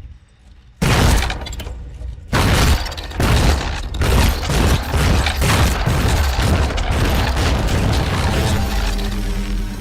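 Crash-and-shatter sound effect: a sudden heavy crash about a second in, a second crash a little over two seconds in, then a long stretch of tumbling, breaking debris.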